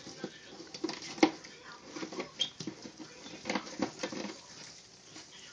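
Two Russian tortoises jostling during courtship: irregular knocks of shell against shell and scratchy scrabbling of claws in coconut-chip bedding as the male pushes onto the resisting female. The loudest knock comes about a second in, with a cluster of knocks near the end.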